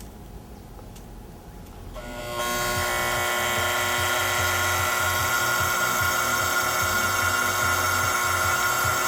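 A small motor starts up about two seconds in and runs with a loud, steady, high whine.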